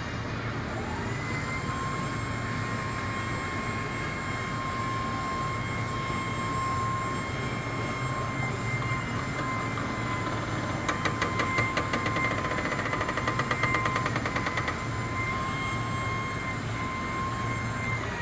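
Bucket truck's engine and hydraulic boom running: a low hum under a steady whine that rises in pitch about a second in and holds as the boom moves. From about eleven seconds in, a rapid rattling clatter joins it for some four seconds.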